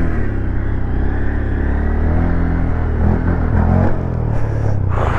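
Motorcycle engine running steadily under throttle during a wheelie, its pitch dipping and rising around three to four seconds in, with a short hissing rush just before the end.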